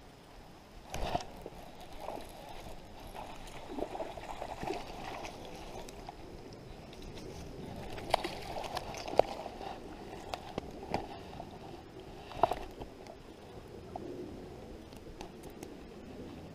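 Close handling noise from bank fishing: rustling with scattered sharp clicks and knocks, the loudest about a second in, and light water sloshing as a skirted jig lure is drawn in to the bank and lifted out trailing weeds.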